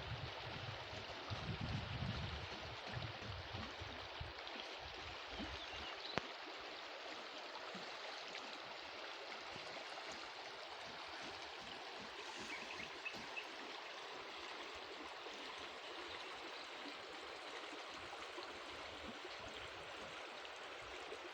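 River water running over rocks, a steady rushing. Low rumbles of wind on the microphone in the first few seconds.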